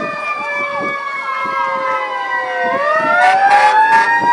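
Several fire apparatus sirens wailing at once, their pitches sliding slowly up and down and overlapping. A new siren sweeps up about two and a half seconds in, and a few short, loud blasts come near the end.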